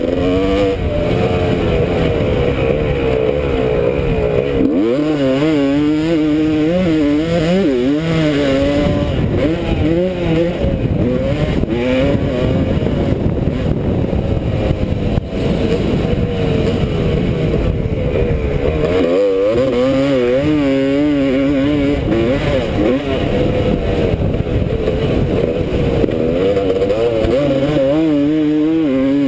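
Motocross dirt bike engine heard from a helmet-mounted camera, its revs rising and falling over and over as the throttle is worked around the track. The engine note drops off sharply about five seconds in and again near twenty seconds, then climbs back.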